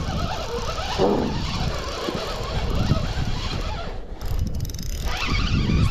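Spinning reel being cranked as a hooked burbot is reeled in, over a steady low rumble.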